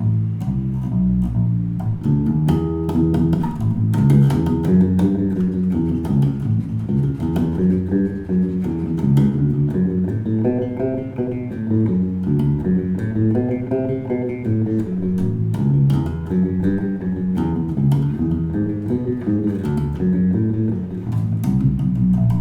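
Washburn XB-400 electric bass guitar being played: a continuous run of plucked notes with sharp attacks, the line stepping up and down in pitch.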